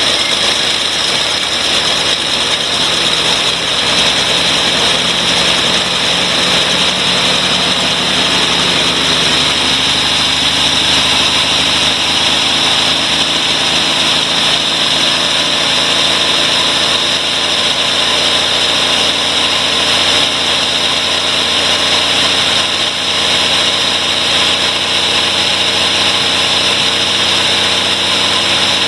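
Carbureted engine of a 1983 Jeep CJ-7, just started cold with a shot of starter fluid after a hard start, running steadily at idle.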